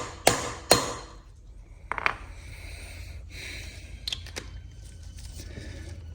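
Sharp metal hammer taps on a fastener, shocking it to break its corrosion before undoing it: two strikes in the first second, ending a steady run of about two a second. After that come quieter clicks and rattles of tools being handled.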